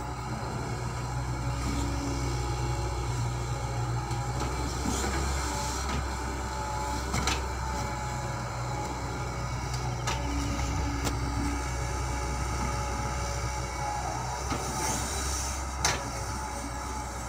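Hitachi hydraulic excavator's diesel engine running steadily under work as the boom and bucket move, with faint whining tones that come and go. A few sharp knocks, the loudest about sixteen seconds in.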